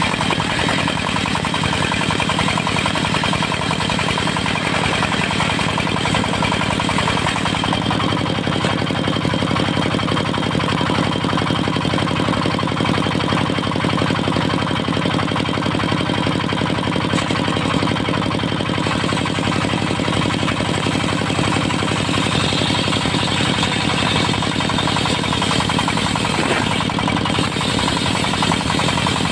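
Diesel engine of a mobile circular-saw sawmill running steadily, with a fast, even beat.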